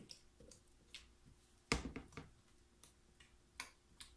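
Silicone spatula and metal spoon scraping and knocking against the sides of a plastic container of thick hot process soap: a scatter of light taps and clicks, the loudest a little under halfway through.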